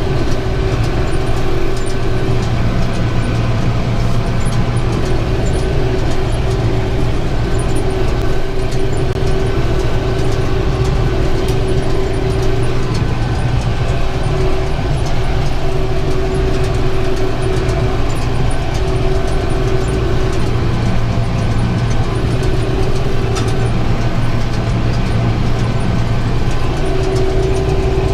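Tractor engine running steadily under load while pulling a round baler that is picking up hay and building a bale. A steady low hum runs throughout, with a higher tone that drops in and out every few seconds.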